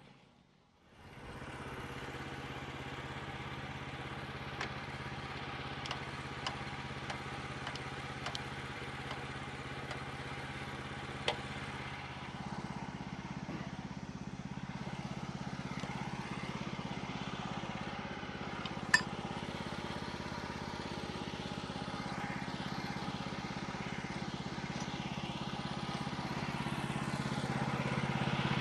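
Portable band sawmill's engine running steadily, its note growing stronger and fuller about twelve seconds in, with scattered light clicks and one sharp click a little past the middle.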